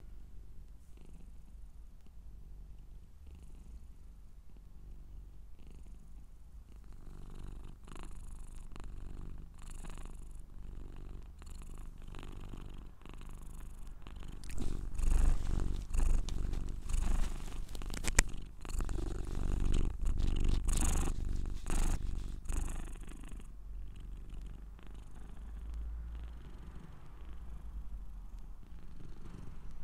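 Scottish Straight cat purring close up, a steady low rumbling pulse that grows louder for several seconds midway.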